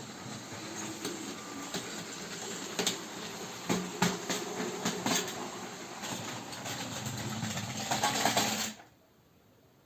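Motorised Lego toy train running on plastic track: a steady small-motor whir with scattered clicks and clacks, louder near the end, then it cuts off suddenly about nine seconds in.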